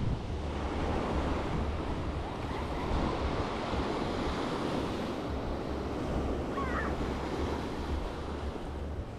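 Sea surf washing onto a sandy beach, with wind buffeting the microphone in uneven low rumbles.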